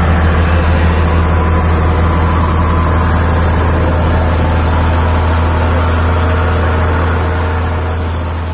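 Hino 500 truck's diesel engine running with a steady deep drone as the truck moves past at close range, fading out near the end.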